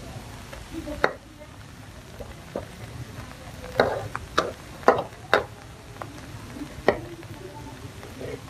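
A metal ladle stirring paste frying in a metal wok, scraping and clinking against the pan in irregular sharp knocks, most of them near the middle, over a light sizzle.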